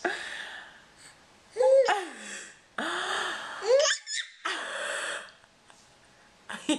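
Seven-month-old baby's excited breathy gasps and squealing laughs, about four bursts, some with short rising and falling squeals.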